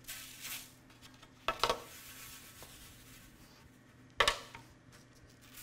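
Knocks and clinks on a metal pizza pan as cornmeal is scattered over it: a quick pair about a second and a half in and one more about four seconds in, with a faint hiss between.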